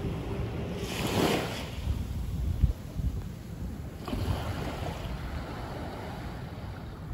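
Small waves breaking and washing up a sandy shore, with a hissing surge about a second in and a softer one around four seconds in. A low rumble of wind on the microphone runs underneath.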